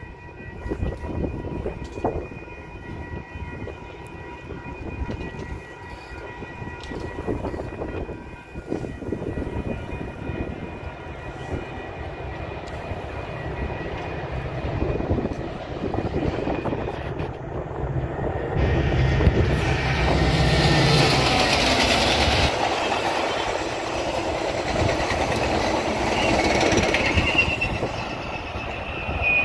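Metra commuter train passing close by: the diesel locomotive goes by loudest from about 19 to 22 seconds in with a deep engine rumble, followed by the bilevel coaches rolling past with clickety-clack on the rails. A high wheel squeal rises near the end.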